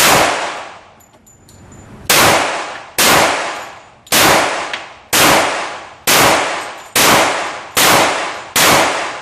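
Glock .45 ACP pistol with a compensated barrel and slide being fired in slow single shots: nine shots, one at the start, then after a pause of about two seconds roughly one a second, coming a little faster toward the end. Each shot is followed by a long ringing echo that dies away before the next.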